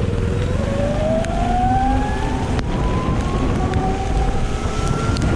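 Ather 450X electric scooter's motor whine rising steadily in pitch as the scooter accelerates from low speed, over a steady rush of wind and tyre noise on the wet road.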